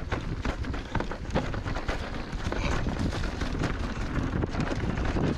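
Rocky Mountain Instinct Powerplay electric mountain bike descending a rough, rocky dirt trail: a steady rumble of tyres on dirt and stones with wind on the microphone, broken by frequent clacks and rattles from the bike over the bumps.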